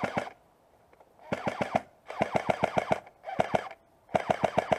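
Airsoft electric rifle firing five short full-auto bursts, its gearbox cycling at about ten shots a second.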